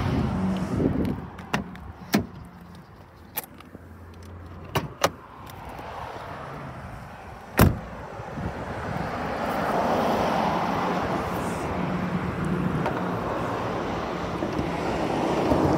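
A car's body being handled: scattered light clicks, then one sharp knock about halfway through. In the second half comes a steady rushing noise, the bonnet being opened toward the end.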